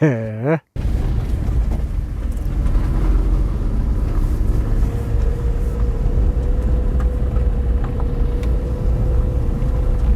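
Small one-litre Renault climbing a wet gravel mountain road: a steady low rumble of engine and tyres on gravel. A faint steady whine joins about five seconds in.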